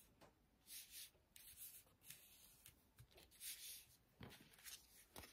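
Faint paper rubbing and rustling: hands press and smooth a layer of patterned paper down onto a card blank to stick it in place, in several short strokes.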